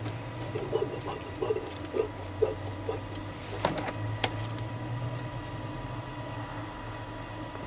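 Coolant gurgling in a 2001 GMC truck's radiator hose as the hose is squeezed by hand to push air out of the cooling system: a run of short burbles about two a second, then two sharp clicks a little past halfway.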